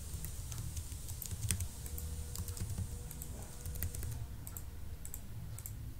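Typing on a computer keyboard: irregular, quick key clicks over a low hum.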